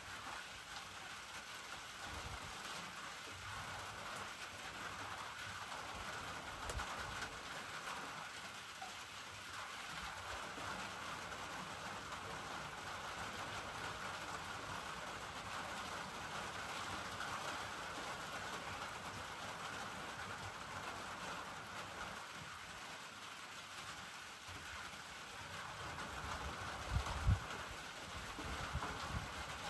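Steady rain falling, an even hiss, with a couple of brief low thumps near the end.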